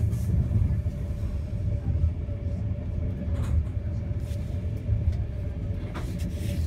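Steady low rumble of an Enterprise passenger train coach running along the track, heard from inside the carriage, with a faint steady hum over it.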